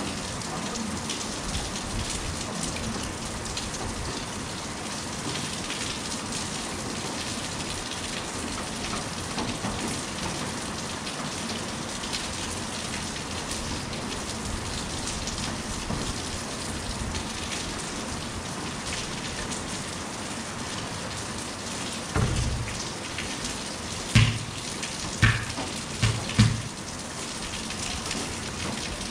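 Steady rain falling on a concrete court. Near the end, a few dull thumps stand out louder than the rain.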